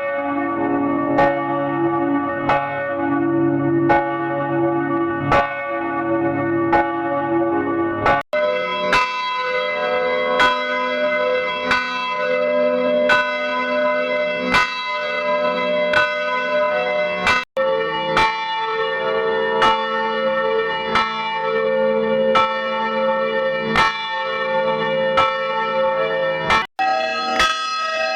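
A church bell tolling, struck about once every second and a half, with each stroke ringing on into the next. The recording cuts abruptly about every nine seconds, and after each cut the bell's pitch jumps to a different key.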